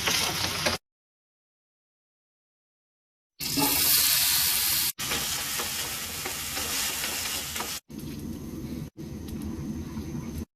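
Food sizzling and frying in a hot pan, heard in short edited clips that cut off abruptly, with a stretch of dead silence about one to three seconds in. The sizzle is loudest just after the silence.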